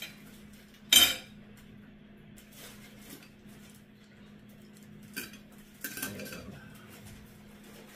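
Metal kitchen tongs clinking against a plate and cutting board while food is served, with one sharp clack about a second in, the loudest, and smaller clinks near five and six seconds. A steady low hum runs underneath.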